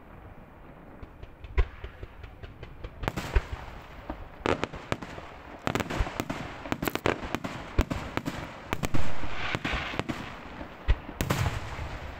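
Fireworks display: scattered sharp bangs at first, then a dense run of cracks and reports from about three seconds in. The loudest blast comes about nine seconds in.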